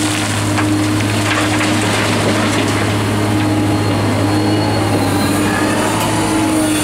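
Liebherr R944 excavator's diesel engine running steadily with a low hum, while gravel pours from its bucket into the steel bed of a dump truck, crackling and rattling in the first few seconds. The empty bucket then swings back with the engine still running.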